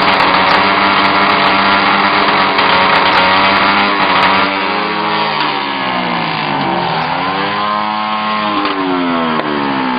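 Motorcycle engine revved hard while standing, held steady at high revs. About halfway through the revs fall away and climb back, then sag again near the end.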